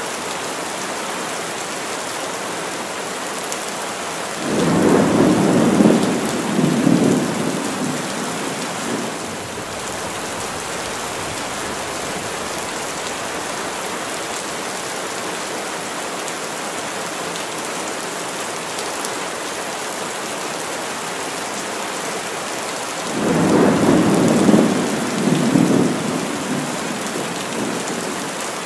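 Heavy rain falling steadily in a forest, with two rolls of thunder, one about four seconds in and another about twenty-three seconds in, each rumbling for four or five seconds before fading.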